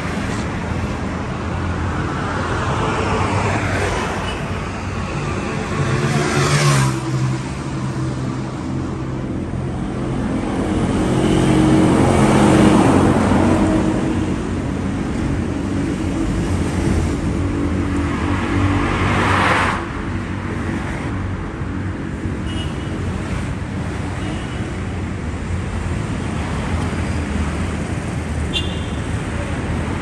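Road traffic: a steady hum of vehicles with several passing close by, the loudest pass about twelve seconds in.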